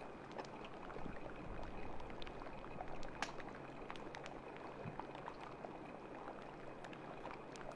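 Steady water sloshing under a low, even machinery-like hum, with scattered faint clicks.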